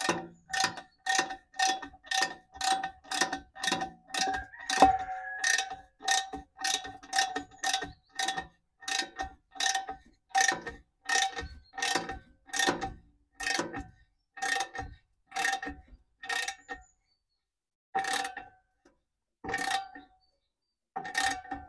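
Ratchet wrench with a 15 mm socket clicking steadily, about two clicks a second, each with a short metallic ring, as an exhaust clamp bolt is tightened. Near the end the clicks slow to a few spaced ones.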